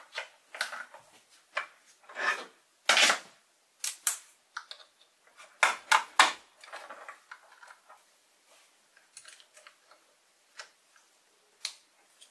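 Hand assembly of 3D-printed plastic parts and a switch box on a lathe with a screwdriver and a hex key: irregular clicks, knocks and short scrapes as parts are fitted and screws are driven.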